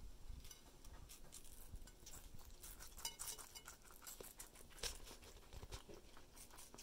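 Guinea pigs biting and chewing soft watermelon: faint, irregular wet clicks and crunches from their teeth, with a brief high chink about three seconds in.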